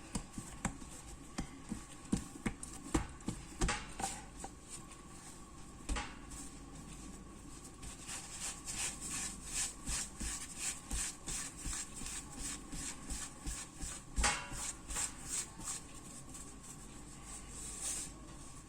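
Hands portioning bread dough and rolling it into small balls on a work surface. There are a few scattered knocks at first, then a run of quick rubbing strokes about two a second, with one louder knock partway through.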